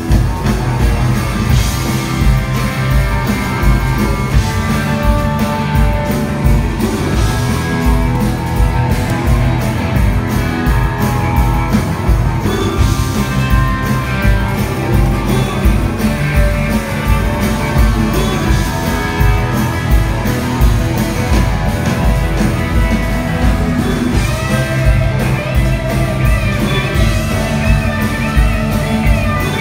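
Live blues-rock jam band playing loud: electric guitars, bass and drums with a steady beat, recorded from among the audience.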